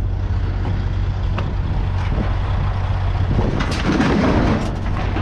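A vehicle engine runs steadily underneath scattered metal knocks from scrap being handled and thrown onto a pile. A denser clatter of metal comes after about three and a half seconds.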